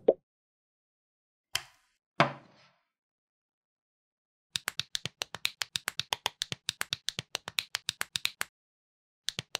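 Plastic toy bricks clicking together: two separate clacks, then a quick, even run of small snaps, about five a second for about four seconds, as pieces are pressed on one after another, starting again just before the end.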